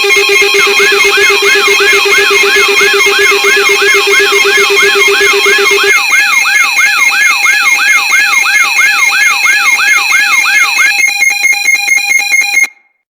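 Loud layered electronic alarm tones of a mock Emergency Alert System alert: several steady tones held together under a repeating sweeping chirp, between two and three chirps a second. The lowest tone drops out about halfway, and the whole alarm cuts off suddenly near the end.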